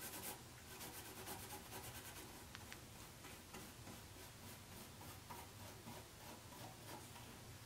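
Faint, quick scratching strokes of a nearly dry bristle paintbrush brushed back and forth across a stencil laid over raised stencil paste.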